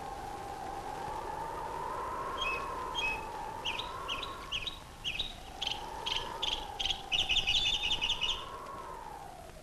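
A siren-like wailing tone slowly rising and falling in pitch, joined about two and a half seconds in by a run of short high chirps that come faster and louder before stopping about a second before the end.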